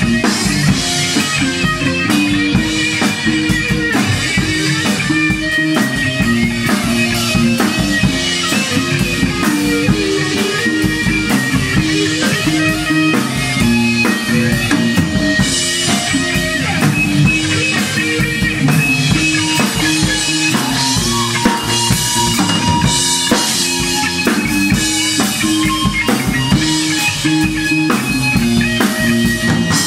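Live rock band playing an instrumental passage: a drum kit with cymbals and kick drum, over guitar and a repeating bass line.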